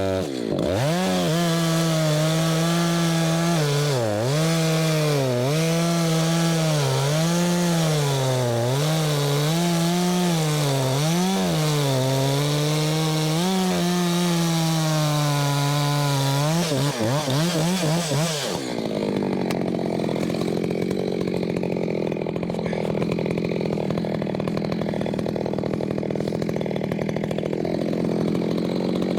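Husqvarna two-stroke chainsaw running at high revs while cutting through ash, the engine pitch repeatedly dipping and recovering as the chain bites. About two-thirds of the way through the sound turns duller and steadier, with the high end dropping away.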